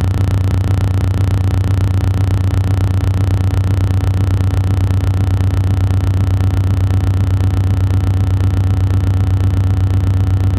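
Quadcopter drone's propellers and motors hovering: a steady, loud hum with a strong low tone and a stack of overtones, pulsing slightly and evenly.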